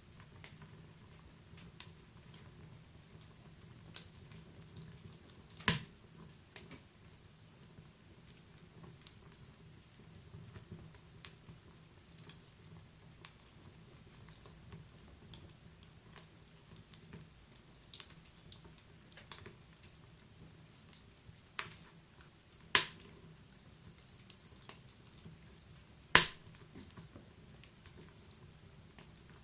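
Wood fire burning inside a stove: scattered sharp crackles and pops over a faint low rumble, with a few much louder snaps.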